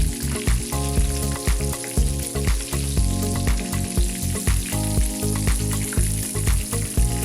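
Flour-coated rabbit pieces frying with a steady sizzle, under background music with a steady beat about twice a second.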